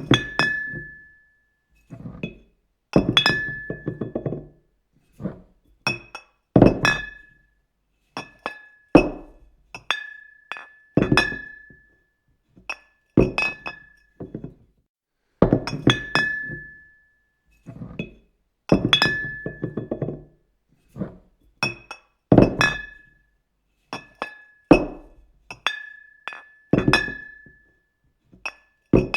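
Glass Coke bottles clinking and knocking together in irregular strikes, one every second or two. Many strikes carry a short high ringing note, and some land with a duller thunk.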